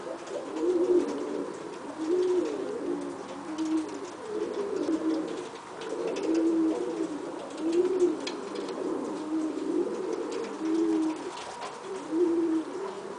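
Domestic pigeons cooing: a run of low, arching coos about one a second, some overlapping.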